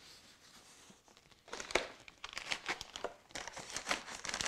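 Plastic food packaging crinkling and rustling as bags are shifted and pressed into place. After faint handling sounds, a fast run of sharp crackles starts about a second and a half in.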